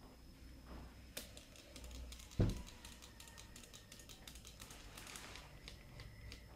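Hands handling a DC motor and its wiring on a wooden board. There is a dull thump about two and a half seconds in, then a quick, irregular run of light clicks and taps.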